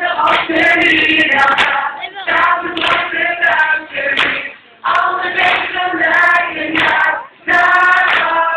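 A group of voices singing a song together, broken by short pauses, with handclaps over it.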